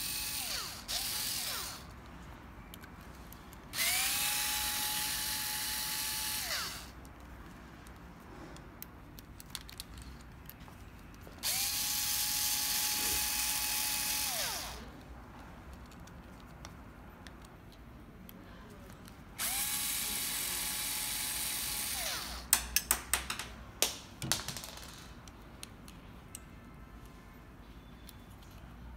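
Electric screwdriver unscrewing the stepper-motor mounting bolts, running in three bursts of about three seconds each, with its whine rising as it spins up and falling as it stops. A quick run of sharp clicks follows near the end.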